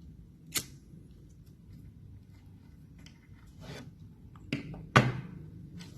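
A few short, sharp clicks and knocks from small objects being handled at close range, with the loudest knock about five seconds in.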